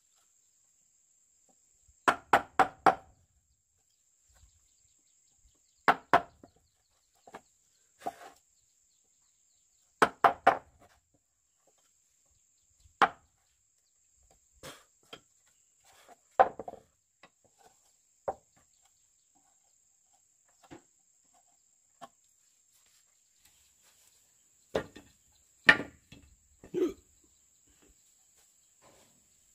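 Sharp strikes of a hand tool on wood, in short groups of two to four blows with pauses of a few seconds between.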